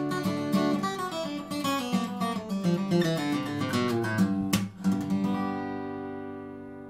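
Taylor 714C cedar-top, rosewood-bodied acoustic guitar played with a flatpick: quick picked notes and strums, then a final chord struck about five seconds in and left ringing, slowly fading away.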